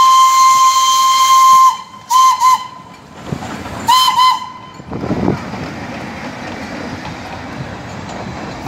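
Darjeeling Himalayan Railway steam locomotive whistle: one long steady blast, then two short toots about two seconds in and another pair of short toots about four seconds in. After that, the train's coaches rolling past with a steady rumble.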